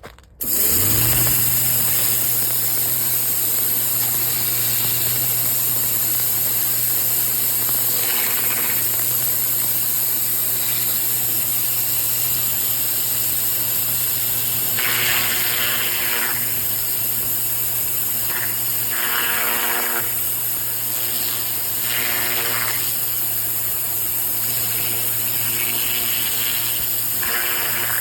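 Pressure washer running steadily, a low motor-and-pump hum under a strong hiss of spray. It starts abruptly just after the opening, with several brief louder rushes in the second half.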